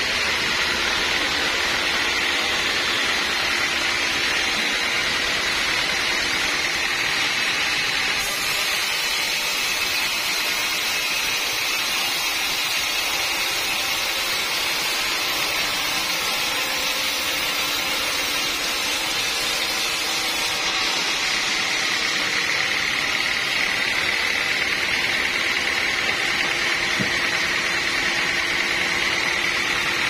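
Band sawmill sawing lengthwise through a teak log: the running blade and machine give a steady, unbroken high-pitched noise throughout the cut.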